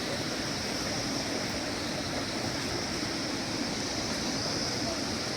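Steady rush of a flowing stream, an even noise with no breaks.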